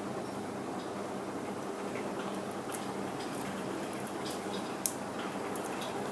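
Small plastic Gundam model-kit parts handled and pressed together: scattered faint clicks and ticks, with one sharp snap about five seconds in, over a steady background hiss.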